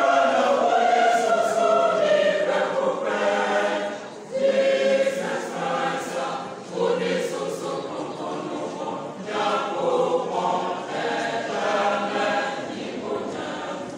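Mixed church choir of men and women singing in parts, in phrases with short breaks about four and seven seconds in.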